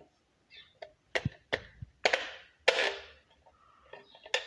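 Plastic light-switch parts being handled and pressed into place: several sharp clicks, with two short scraping rubs about two and three seconds in.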